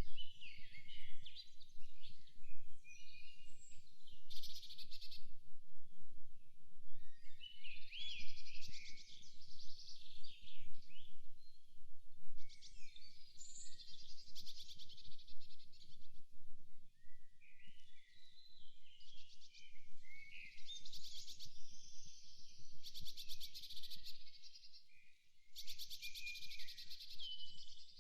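Several songbirds singing in a forest, overlapping warbling phrases with short rapid trills recurring every few seconds, over a steady low background noise.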